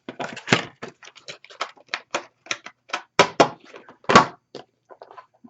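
Skincare product packaging being handled and opened by hand: a quick, irregular run of crackles and clicks, with a few louder snaps.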